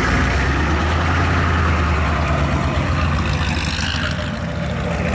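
Ford pickup truck's engine running at low revs close by, then easing off a little as the truck pulls away.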